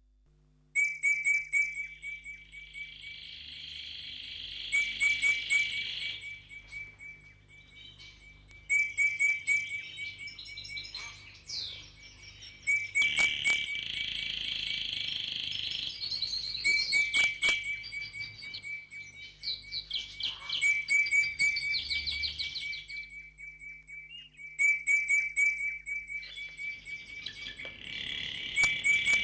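Birds chirping in repeated short phrases over a steady, fast-pulsing insect-like trill, starting abruptly under a second in.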